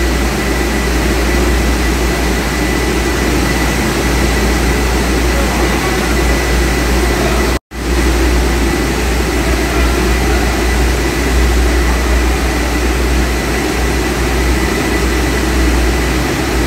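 Machinery of a frozen French fries production line running: a steady drone with a strong low hum and a faint high whine, cut off for an instant about eight seconds in.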